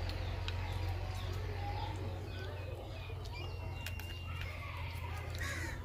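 Light clinks and scrapes of spoons on clay bowls, with birds chirping and a steady low hum underneath.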